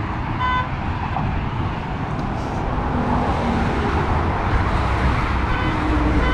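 Highway traffic passing by: steady road and tyre noise with engine rumble, growing louder as a vehicle passes close in the second half. A short electronic beep sounds about half a second in and again near the end.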